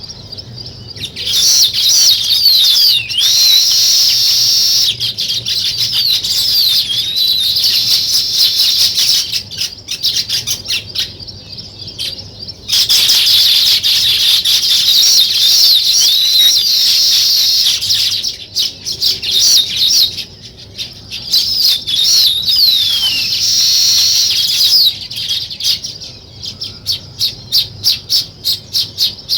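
A flock of small songbirds chirping and chattering in dense, overlapping calls. There are a couple of thinner patches, and near the end comes a run of quick, evenly spaced chirps.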